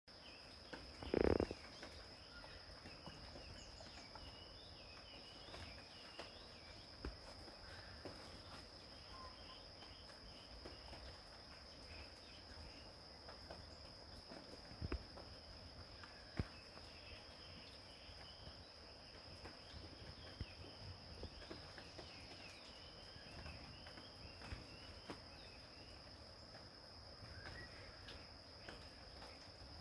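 Steady high-pitched trilling of insects, with a brief thump about a second in and a few faint clicks and knocks.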